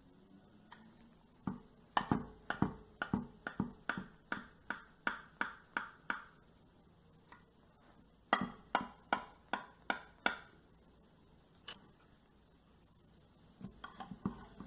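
A knife cutting a crisp-crusted baked pie in a glass baking dish, each stroke a sharp tap of the blade against the glass, about three a second. The strokes come in two runs: about a dozen, a pause, then about six more. One last single tap follows.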